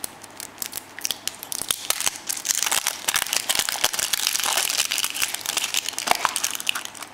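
Printed foil wrapper on a surprise egg crinkling as it is peeled off and crumpled. It is a dense run of crackles that grows loud about a second in and eases near the end.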